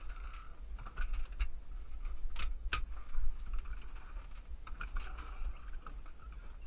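Cessna 150's four-cylinder Continental O-200 engine running at taxi power, heard as a muffled low rumble, with light rattling clicks from the cabin and two sharp clicks about two and a half seconds in as the aircraft rolls over grass.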